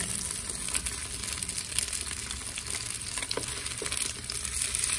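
Sliced pork sizzling in hot fat in a frying pan, a steady crackling hiss. A few light clicks come from metal tongs touching the pan as the meat is turned.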